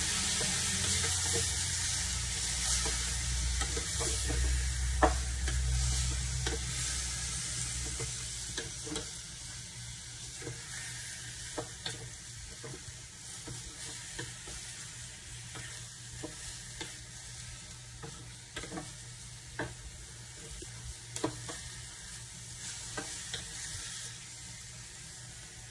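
Marinated chicken and pork pieces sizzling in oil in a small pan as a wooden spatula stirs them, with irregular knocks and scrapes of the spatula against the pan. The sizzle grows gradually quieter as it goes on.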